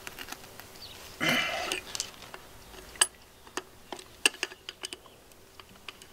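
An adjustable wrench clicking and tapping against a brass fitting on a cast air-brake relay valve body as it is set on and turned. The sharp metal ticks are scattered, with several in quick succession between about three and five seconds in, and one brief rustling burst comes about a second in.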